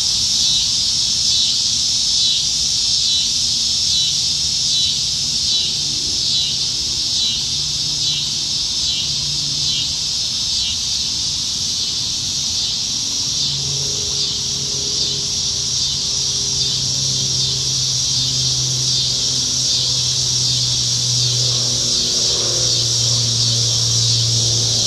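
A dense chorus of cicadas singing in the trees, a loud high buzz that pulses in the first half and then evens out. From about halfway in a low steady hum joins underneath.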